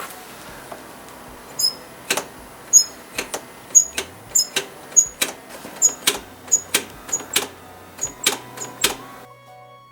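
Honda Dio AF56 scooter's combination brake being worked by hand over and over: sharp mechanical clicks about twice a second, many carrying a brief high squeak, the brake squeak the owner wants to cure.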